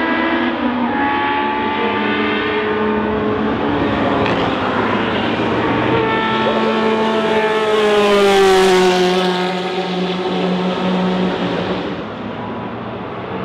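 Historic Can-Am/Interseries sports racing cars' engines at racing speed, several engine notes heard at once. About eight seconds in, one car passes close: its note is loudest there and then drops in pitch as it goes by.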